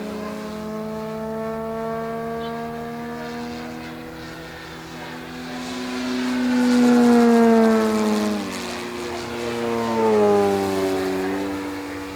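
Electric-powered quarter-scale Spitfire model flying by, its propeller and motor making a steady pitched drone. It grows loud and drops in pitch as it passes about eight seconds in, then makes a second, shorter rise and fall in pitch near the end.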